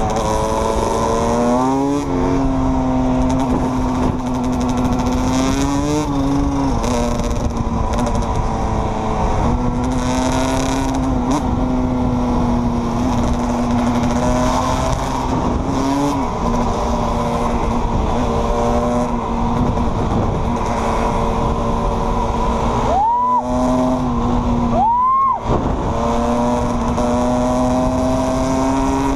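Sport quad and dirt bike engines running while riding, holding a steady pitch with several brief revs. Near the end come two sharp throttle blips, where the sound cuts out and then jumps up in pitch.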